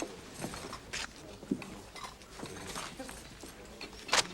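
Restaurant background: scattered clinks of cutlery and dishes with faint chatter, and one sharp clink near the end.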